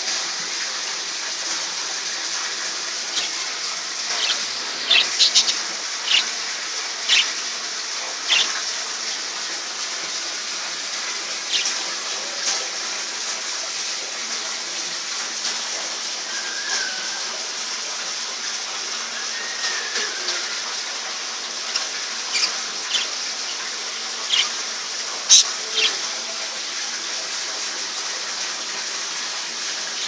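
Steady rush of a small waterfall pouring into a pond, with budgerigars giving short, sharp chirps scattered through it, several in quick succession now and then.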